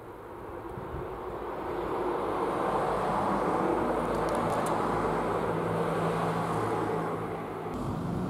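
Outdoor rushing engine noise from a passing vehicle, with a low steady hum. It swells over the first couple of seconds, holds steady, and drops off abruptly near the end.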